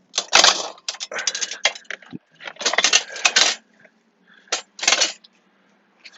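Metal tools and parts clinking and clattering in irregular clusters while the HVAC box is worked loose from the dash bar.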